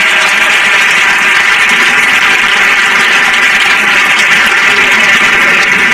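Crowd of spectators applauding steadily in a large hall, ringing with the hall's echo.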